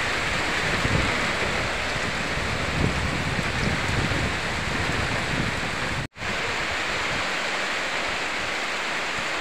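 Steady hiss of heavy rain falling, with low buffeting on the phone microphone during the first six seconds. The sound drops out abruptly for a split second about six seconds in, then the rain hiss carries on.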